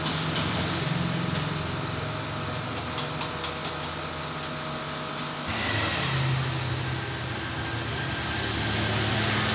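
Steady hum of running machinery, with a hiss on top; the hum's tone changes abruptly about halfway through.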